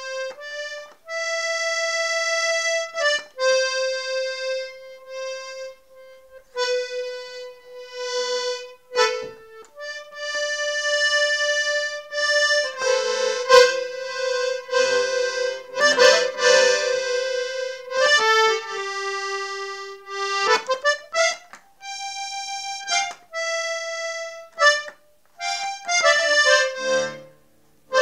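Solo accordion playing a slow melody of long held notes, with fuller chords near the middle and short pauses between phrases.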